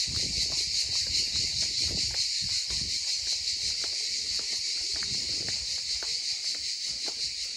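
Cicadas singing in the trees, a steady, high-pitched, finely pulsing drone, with footsteps on pavement underneath.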